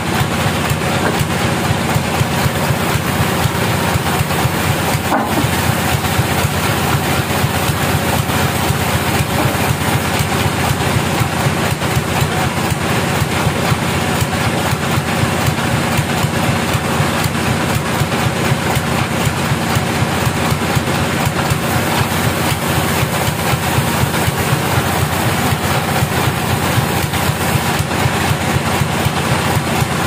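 A band sawmill's power unit running steadily with a dense, even mechanical drone and a fast low pulsing, idling while the log is loaded rather than sawing.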